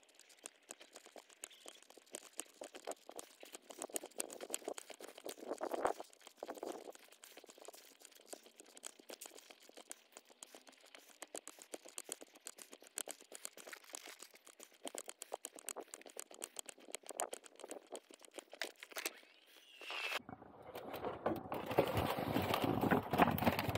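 Faint crackling, clicking and rubbing handling noise from the camera on the foam airframe as the plane is carried. About 20 seconds in, it gives way to louder rustling and bumping as the plane is handled into the car's rear compartment.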